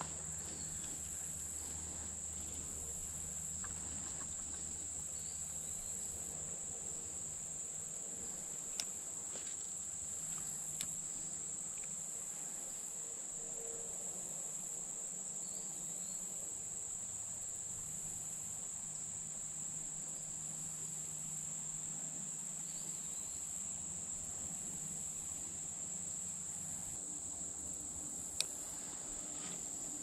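Steady, high-pitched drone of a summer insect chorus, with a few faint short clicks.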